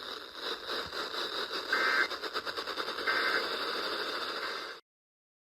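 NOAA Weather Radio receiver hiss and static, with two short digital data bursts, the EAS end-of-message code that closes a warning. The audio cuts off near the end.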